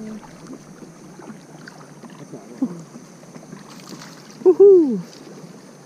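Steady rush of running water from a small waterfall, with a person's single short call that rises and falls late on.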